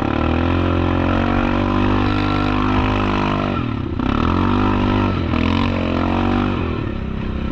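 Yamaha Kodiak 700 ATV's single-cylinder four-stroke engine running under way, its engine speed easing off about three and a half seconds in and then picking up again.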